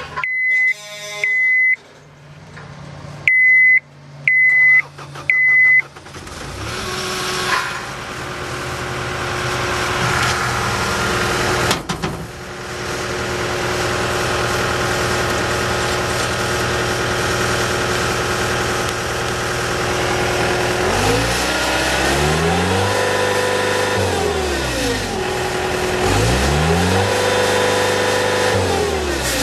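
2012 John Deere 323D compact track loader: a string of warning beeps at key-on, then its diesel engine cranks and starts about six seconds in and idles steadily. Near the end the engine is revved up twice, each time held for a second or two before dropping back to idle.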